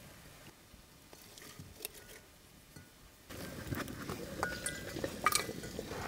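Light clinks of glassware and dishes. From about three seconds in, a louder steady noise with sharp clicks sets in.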